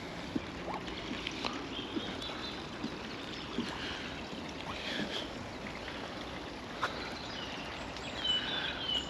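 Outdoor ambience at the edge of a small pond: a steady wash of background noise with scattered faint clicks and a few short bird chirps, the chirps clearest near the end.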